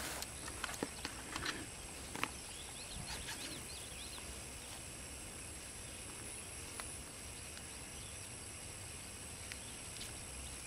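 A few light clicks and taps from a trail camera being handled in the first two seconds, over a steady high-pitched insect drone. After that only the insect drone remains, with a few faint chirps about three seconds in.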